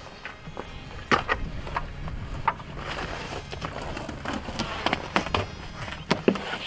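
An old, worn rubber slide-out seal being pulled along and out of its track on a travel trailer's slide-out: a rubbing, scraping noise with scattered clicks and knocks as the rubber drags through the channel.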